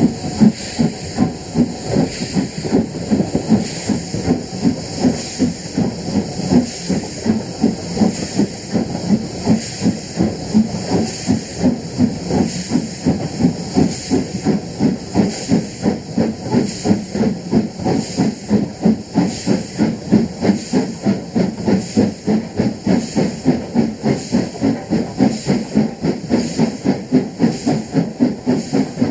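LMS Hughes 'Crab' 2-6-0 steam locomotive No. 13065 working hard up Medstead bank, its exhaust beating in an even rhythm of about three beats a second. It is heard close up from an open carriage window behind the engine.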